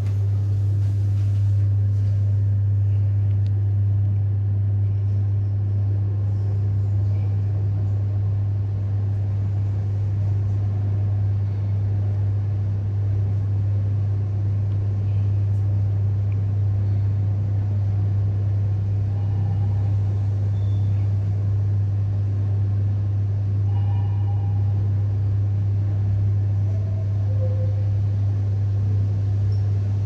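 Steady low hum and rumble inside a Mitsubishi high-rise lift car, unbroken throughout, with a few faint short tones about three-quarters of the way through.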